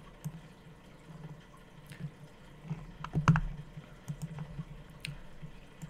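A few faint, scattered small clicks over a low hum that comes and goes, with one slightly louder click about three seconds in.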